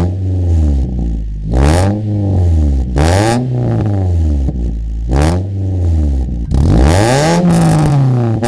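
Toyota Yaris 2NR four-cylinder engine revved for an exhaust sound check: about four short blips that rise and fall back to idle, then a longer, higher rev near the end.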